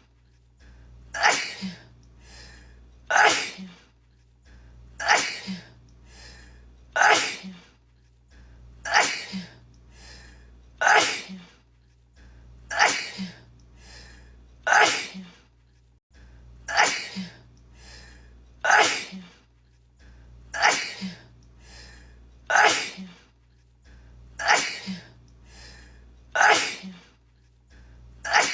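A woman sneezing over and over, about one sneeze every two seconds, each with a short breath in just before it.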